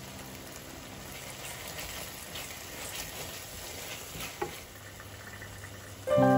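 Wooden spoon stirring tomato sauce in a hot frying pan: a soft sizzle with scattered light scrapes and clicks of the spoon against the pan. Background music comes in near the end.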